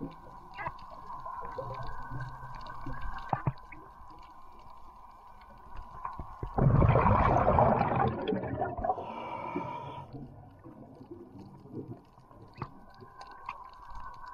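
Underwater ambience picked up by a submerged camera: a steady hum with scattered faint ticks and clicks. About six and a half seconds in, a loud rushing noise lasts roughly two seconds.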